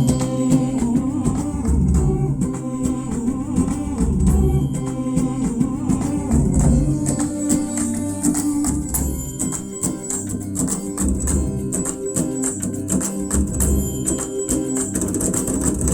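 Recorded music with a steady tambourine rhythm over a pulsing bass line, played back through a Thule IA100 stereo amplifier and Adams HM1 speakers.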